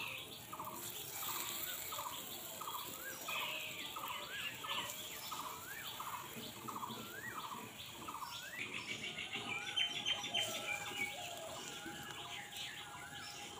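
A bird calling over and over in short rising notes, just under two a second. A quick, higher chatter joins in about two-thirds of the way through.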